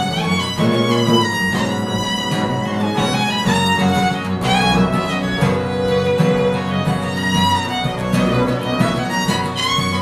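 Fiddle playing the melody over an upright bass, with acoustic guitar accompaniment: a small acoustic string band playing a tune.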